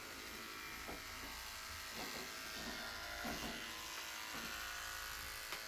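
Electric animal clippers buzzing steadily as they shave the belly fur of a pregnant dog, preparing her abdomen for a caesarean section.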